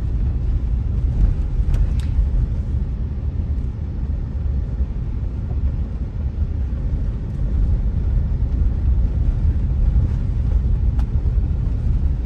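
Steady low rumble of a car driving along the road, engine and tyre noise heard from inside the cabin, with a couple of faint clicks.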